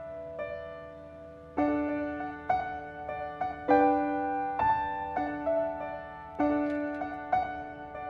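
Background music on piano: slow chords struck about once every second, each left to ring and fade.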